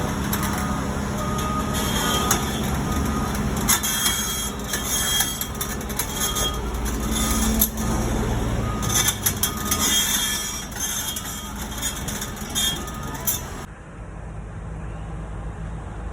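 Excavator's diesel engine running with a steady low hum, under dense metallic clattering and rattling. The clatter stops about three-quarters of the way through, leaving only the engine's hum.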